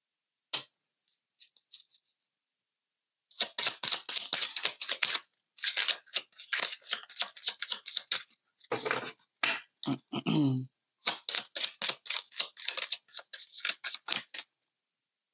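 Deck of oracle cards being shuffled by hand: rapid flurries of crisp card clicks in two long runs, with a short low hum between them.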